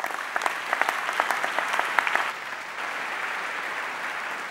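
Large audience applauding, with sharp individual claps standing out over the first two seconds before the applause settles into a steady patter that slowly fades.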